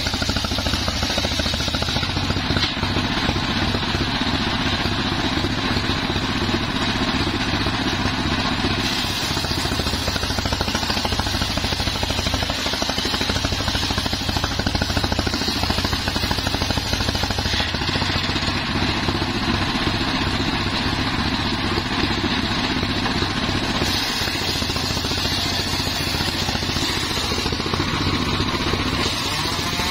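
Homemade engine-driven circular saw bench ripping a green mahogany log lengthwise, the engine and spinning blade running steadily through the cut.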